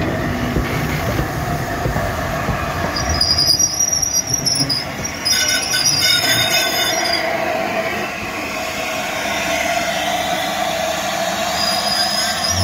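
LNER A4 steam locomotive Sir Nigel Gresley moving slowly at low speed, its running gear giving a steady rumble. There are two spells of high-pitched metal squealing around the middle, and a short one near the end.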